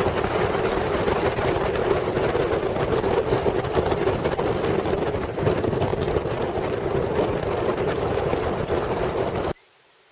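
Vehicle on a rough ride: a loud, steady drone of engine and road rumble. It cuts off suddenly near the end.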